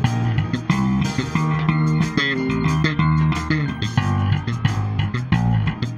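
Electric bass guitar plucked with the fingers, playing a busy, melodic bass line over a recorded band track with guitars.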